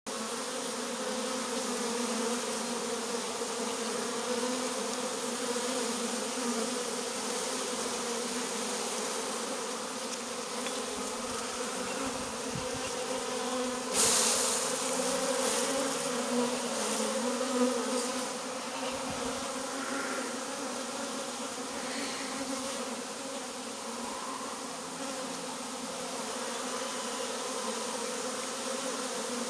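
A swarm of honeybees buzzing steadily in a low, even hum. About halfway through comes a sudden louder noise, followed by a few smaller knocks.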